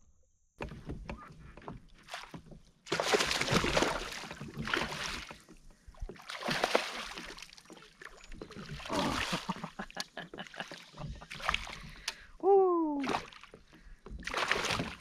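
Kayak paddle strokes in the water, a swish every couple of seconds. Near the end a short bird call falls in pitch.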